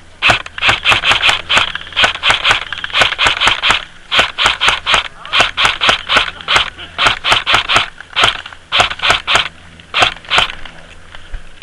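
Airsoft rifle fired semi-automatically in quick succession, a fast string of sharp snapping shots about three or four a second, with two short pauses and stopping shortly before the end.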